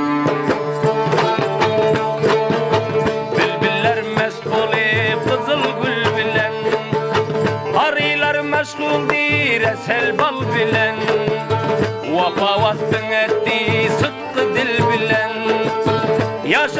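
Instrumental folk music from a small ensemble: a plucked rubab and a long-necked lute play ornamented melodic runs over a hand drum's steady beat.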